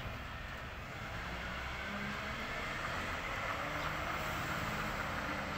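Recycling truck running and pulling away, a steady engine hum with road noise that grows a little louder after about two seconds. A brief knock sounds right at the start.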